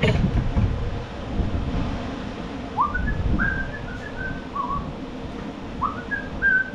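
A person whistling a short tune with clear gliding notes, starting about three seconds in, over low knocking and handling noise from working on a push mower on a bench, with a sharp knock right at the start.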